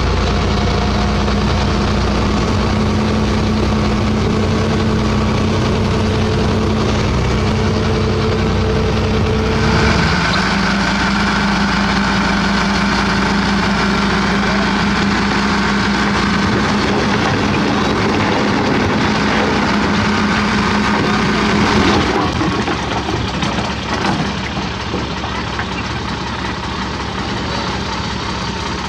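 A dump truck's diesel engine idling steadily, heard from inside the cab. About ten seconds in, it changes to a truck engine running steadily with a high tone over it as the tipper bed is raised. For the last several seconds a rough, uneven rattle runs through it as rocks slide out of the tipping bed.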